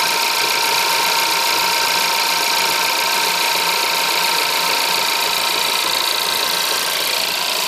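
Skoda Yeti 1.2 TSI turbocharged four-cylinder petrol engine running steadily with a fast, even ticking knock, the noise the owner hears when the engine is cold.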